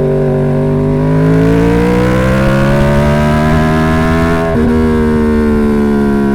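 2011 Yamaha R1's crossplane inline-four engine running through the stock exhaust, its pitch climbing steadily for a few seconds, then dropping abruptly about four and a half seconds in and easing slowly lower.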